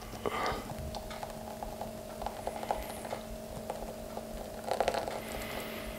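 Thick blended broccoli soup pouring from a blender jug into a bowl: faint soft patter and small ticks, a little louder briefly near the start and again about five seconds in, over a steady hum.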